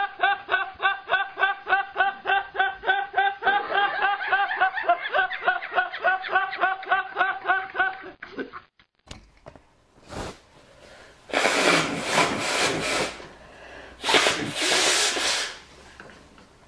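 A man laughing hard in a fast, even ha-ha-ha rhythm, about four bursts a second, for roughly eight seconds. After a short gap come two loud, hissing nose-blows a couple of seconds apart.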